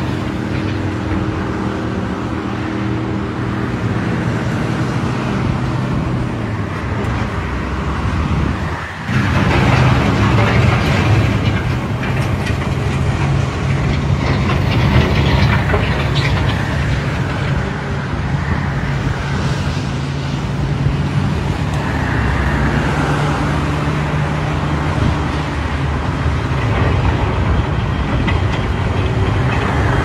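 Diesel engines of heavy earthmoving machinery running steadily, with a brief dip about nine seconds in, after which the sound is a little louder.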